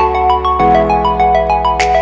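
Background music: a quick run of bright mallet-like notes over sustained chords and a steady bass, with the chord changing about half a second in and a cymbal swell near the end.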